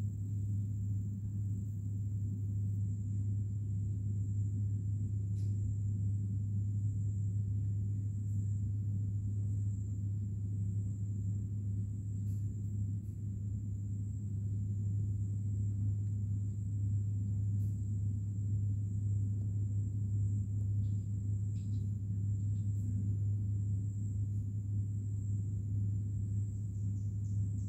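A steady low hum with a faint, steady high-pitched whine above it and a few faint ticks.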